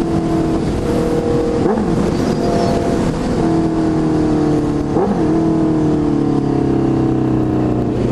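Honda CB650F inline-four engine running loud through a full Jeskap GP2R 4-into-1 aftermarket exhaust while the bike is ridden. The engine note changes pitch about two and five seconds in.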